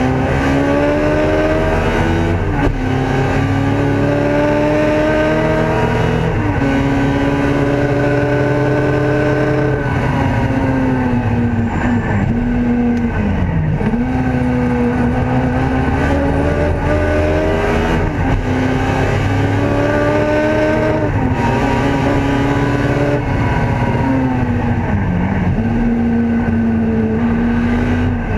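Ford Escort race car's engine heard from inside the cabin under hard acceleration, its pitch climbing through each gear and dropping sharply at each gear change, several times. A few times the note dips steeply and swings back up.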